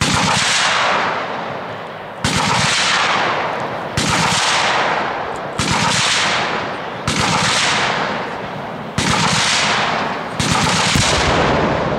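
Machine guns firing in bursts, seven in all about every one and a half to two seconds, each starting sharply as a rapid run of shots and trailing off over a second or two.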